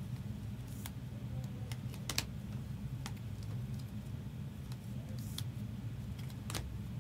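A handful of scattered light clicks and taps from trading cards being slid into plastic sleeves and snapped into hard plastic cases, over a steady low hum.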